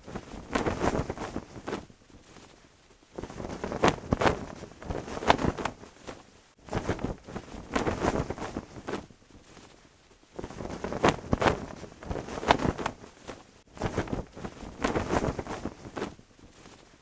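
A cloth flag flapping and snapping in gusting wind, in surges a few seconds long with short lulls between.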